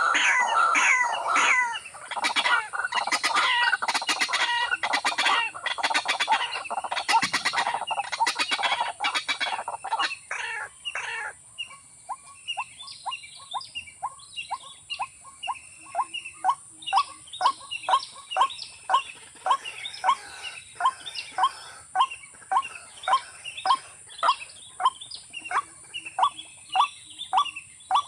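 Rails calling: several overlapping clucking calls for the first ten seconds or so, then one bird repeating short, even notes about one and a half times a second.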